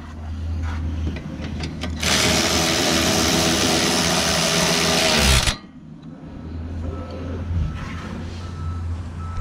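Cordless power tool spinning a socket on a long extension to run down a bolt at the radiator support. It runs for about three and a half seconds, its motor note sagging just before it stops, with quieter handling noise before and after.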